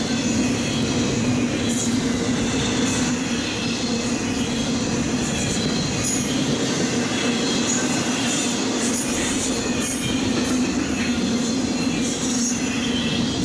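Intermodal freight train's trailer and double-stack container cars rolling past steadily, steel wheels on rail, with short, repeated bouts of high-pitched wheel squeal.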